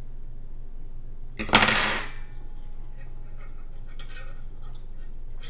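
A fork clattering against a ceramic dinner plate: one loud clatter about a second and a half in, then a few light clinks later.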